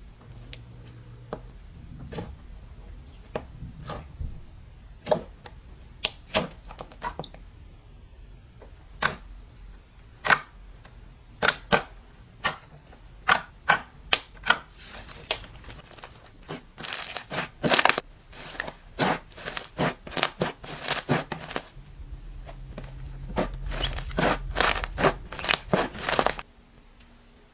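Slime with clay mixed in being kneaded and pressed by hand, giving sharp sticky pops and clicks, a couple a second at first and coming faster in the second half, then stopping suddenly near the end.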